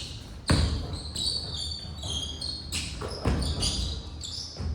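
A basketball bouncing on a gym floor, a few separate thuds with a hall echo, among short high squeaks of sneakers on the court.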